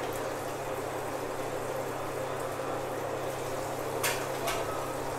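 Steady background hiss with a low hum, and two short clicks about four seconds in.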